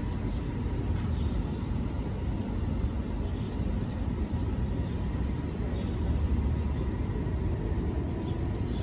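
Steady outdoor background noise: a low rumble with a light hiss over it and no distinct events.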